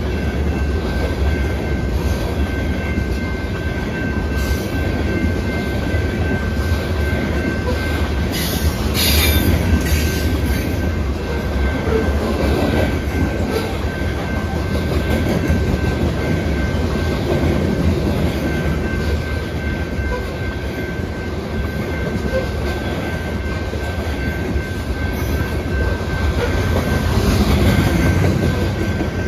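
Freight train of covered grain hopper cars rolling past, a steady loud rumble of steel wheels on the rails with clickety-clack over the joints. A thin steady high whine runs through it, with a brief sharper screech about nine seconds in.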